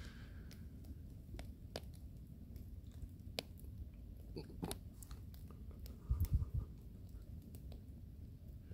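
Wood fire burning hard in an upright slotted log, crackling and popping with scattered sharp snaps over a low steady rumble. A brief louder low thump comes a little after six seconds.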